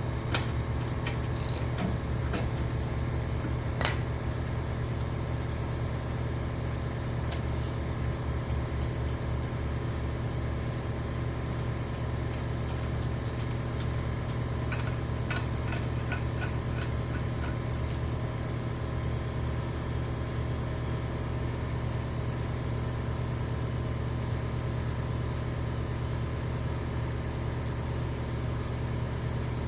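Shop air compressor running steadily as it pumps its tank back up, a constant motor hum. A single sharp click about four seconds in.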